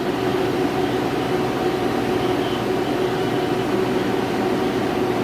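Repaired, newly recharged freezer's refrigeration unit running: compressor and condenser fan giving a steady, even hum with a faint tone in it.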